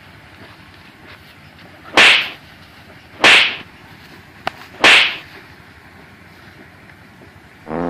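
Three loud, sharp smacks about a second and a half apart, the blows of kicks landing on a man, each with a short fading tail. A rooster starts to crow at the very end.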